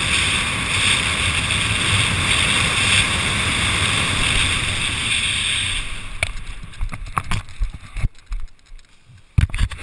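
Wind rushing over the microphone during a parachute descent, a steady noise that drops away about six seconds in at touchdown. After that come scattered short knocks and rustles as the parachute and gear settle.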